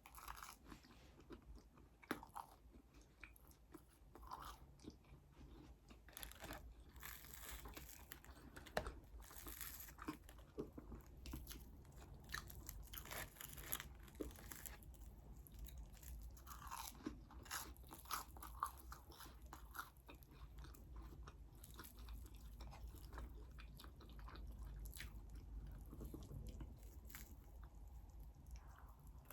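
Close-miked eating sounds: food being chewed and crunched, with many short, sharp crackles and clicks.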